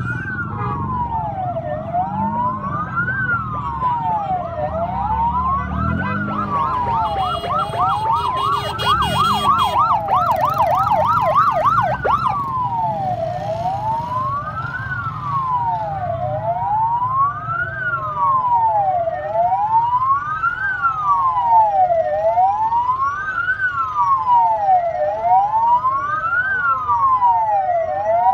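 Emergency vehicle siren wailing, rising and falling about once every two seconds. For a few seconds partway through, a second siren joins with a fast yelp. Vehicle engines run low underneath.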